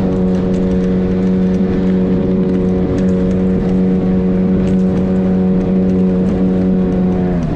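Motorboat engine running at a steady high speed with an even drone, then throttled back just before the end, its pitch dropping.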